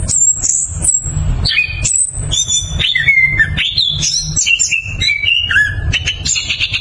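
Chestnut-capped thrush (anis kembang) singing a fast, continuous, varied song of sharp high whistled notes and quick pitch glides, with a low rumble underneath.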